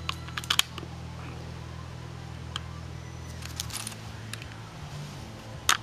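Scattered light clicks and taps from packets of 5.45x39 cartridges being handled, with a louder knock near the end, over a steady low hum.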